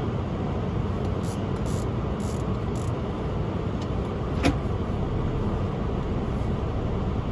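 Car driving: a steady low rumble of engine and road noise, with one sharp click about halfway through.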